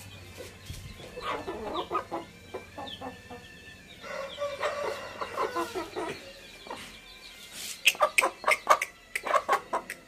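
Chicken clucking in short repeated calls, ending in a fast run of sharp, louder clucks near the end.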